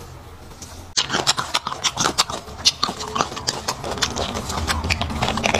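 Close-miked eating sounds of braised beef marrow bones: a dense run of wet mouth clicks and smacks, starting about a second in.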